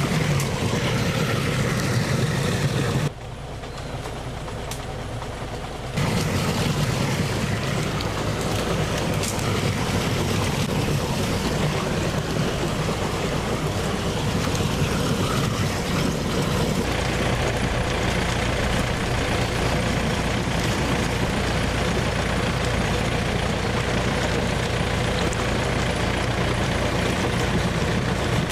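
Engine of a water pump running steadily while it pumps out a fish pond. About three seconds in it drops to a quieter level for some three seconds, then comes back.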